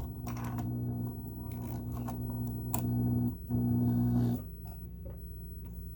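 Kenmore sewing machine motor running slowly as it starts to sew, with a brief break a little over three seconds in, then stopping about four and a half seconds in as the thread catches and jams.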